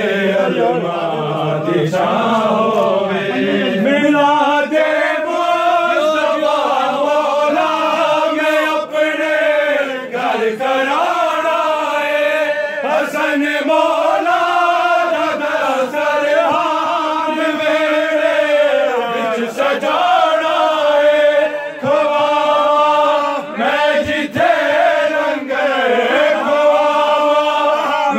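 Male voices chanting a Punjabi devotional song in long, drawn-out phrases.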